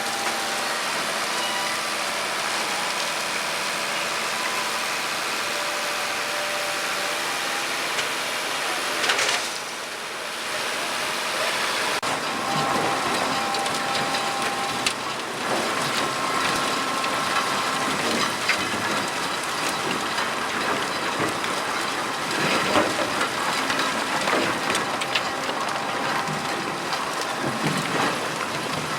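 WSM 5472BHCP industrial horizontal grinder running and grinding biomass feedstock: a steady dense din with crackling from the material being crushed. It gets louder and more irregular from about twelve seconds in.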